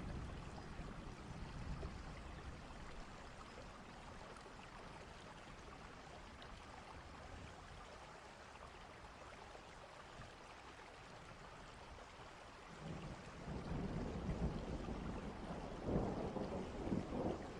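Recorded thunderstorm: steady heavy rain, with a low thunder rumble swelling up about two-thirds of the way in and rolling on to the end.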